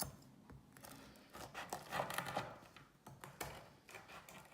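Knife sawing and crunching through a firm, freshly baked almond biscotti log, with clicks of the blade on the cutting board and scraping cuts, loudest about two seconds in.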